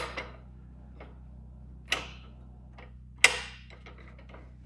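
Sharp metallic clicks and clanks of the chop saw's steel vise clamp being worked and tightened against a piece of railroad track, a few separate knocks with the loudest about three seconds in.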